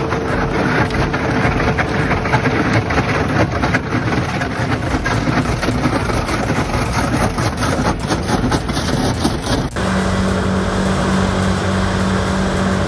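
Large wood chipper or grinder running and shredding wood: a dense noise of crackling and cracking over the machine. About three-quarters of the way through it changes abruptly to a steady engine drone of heavy equipment.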